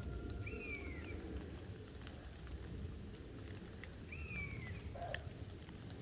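Two drawn-out calls from a forest animal, each rising slightly and then falling, about three and a half seconds apart, over a low steady rumble. The walker takes the caller for a deer shouting in alarm.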